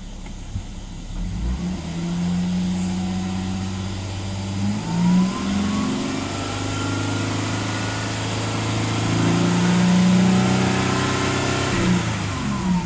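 2015 Mercedes-Benz GL450's 4.7-litre twin-turbo V8 revved in Park. Engine speed climbs in steps, held around 3,000 rpm and then about 4,000 rpm, and drops back toward idle near the end.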